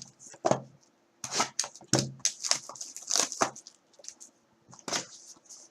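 Plastic wrapping crinkling and cardboard packaging rustling in irregular bursts as a sealed box of trading cards is opened by hand.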